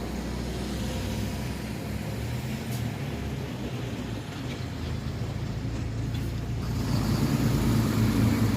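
Steady low rumble of passing vehicles at a level crossing, growing louder about seven seconds in.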